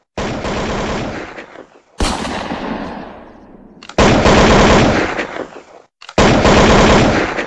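Four bursts of rapid automatic gunfire, each a second or two long, starting abruptly, the loudest about four seconds in.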